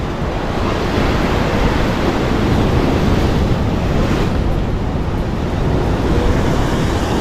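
Ocean surf washing against the boulders of a rock breakwater, a steady rushing noise, with wind buffeting the microphone.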